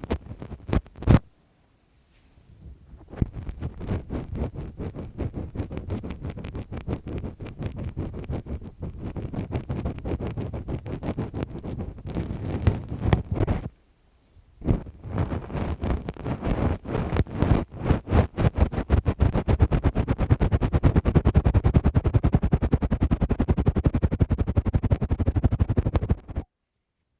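Lace-gloved hands rubbing and scratching close to the microphone in fast, dense strokes, with short pauses about 2 and 14 seconds in and a stop just before the end.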